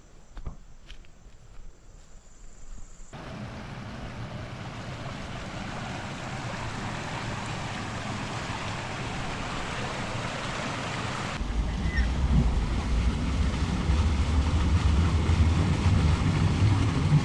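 Steady rush of flowing stream water. About eleven seconds in, a heavy low rumble joins it and it grows louder.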